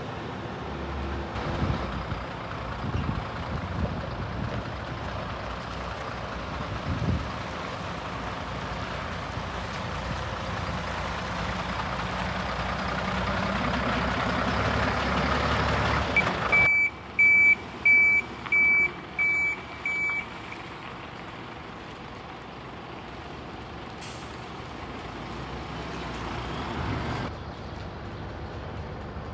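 Scania 94D 260 truck's nine-litre six-cylinder diesel running as the truck drives, growing louder over the first half. Then its reversing alarm beeps about six times, one steady high tone, with a short hiss later on.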